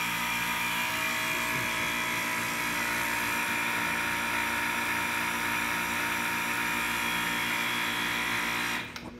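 Powered hydraulic pump driving a Hytorc hydraulic nut splitter, running steadily with a constant hum of several tones, then shutting off sharply near the end.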